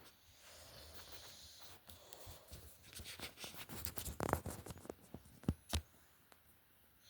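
Soft rustling, then a dense run of scratchy clicks and taps in the middle, with two sharper clicks near the end.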